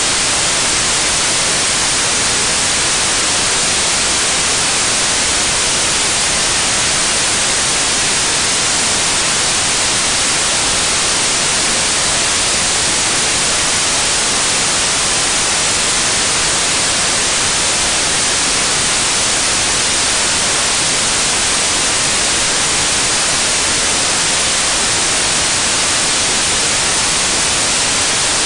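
Loud, steady hiss like static or white noise, even and unchanging, with no engine, pump or drilling sound standing out of it.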